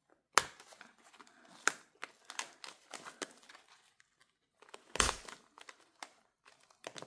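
Clear plastic zip envelopes in a cash-budget binder crinkling and rustling as hands handle and stuff them, with scattered small clicks and one louder knock about five seconds in.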